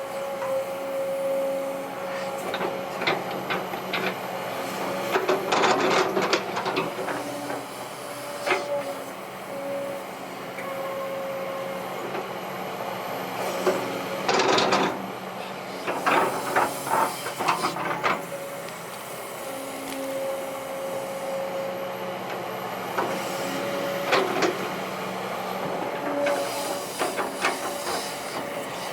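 Kobelco SK200-8 Super XM hydraulic excavator working, its engine and hydraulic pump running with a steady whine whose pitch shifts as the load changes. Bursts of clanking and scraping from the bucket digging into soil come several times, the loudest a few seconds in, around the middle and near the end.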